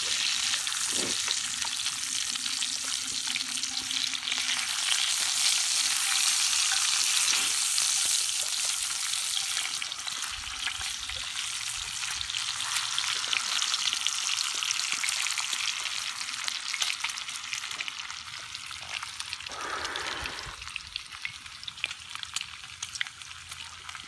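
Bacon sizzling in a cast iron skillet over campfire coals, a steady high hiss with many small crackling pops of spitting fat. It grows fainter in the last few seconds.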